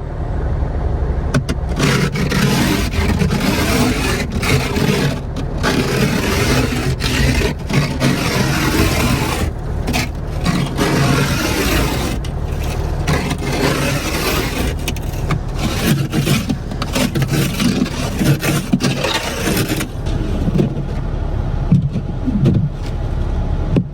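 Repeated scraping of ice and snow off a car with a scraper, in a long run of rough strokes with brief pauses.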